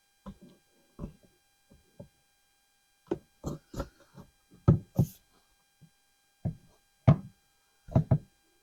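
Short hard plastic knocks and taps, a dozen or so at irregular spacing with quiet gaps between, as a new air filter is worked down into the plastic airbox of a Ford F250 Super Duty 6.2 gas engine and the housing is handled.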